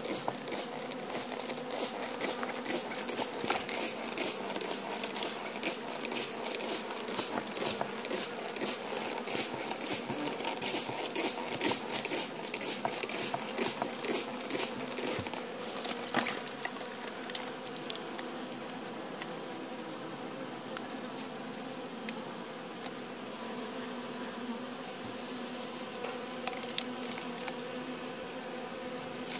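Honeybee colony in an open hive humming steadily, with many small clicks and crackles over the first half that thin out later.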